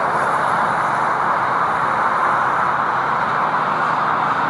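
Jet airliner engines, a loud steady rush of noise.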